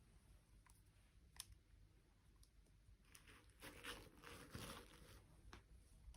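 Faint handling noises of toy packaging: a couple of light clicks, then about two seconds of crinkling and rustling in the middle.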